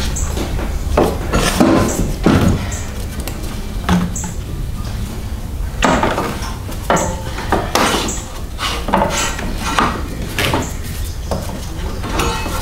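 Hands working a rubber serpentine belt off the engine pulleys of a stopped 7.3 L diesel: irregular clicks, knocks and rubbing of belt and parts in the engine bay, over a steady low hum.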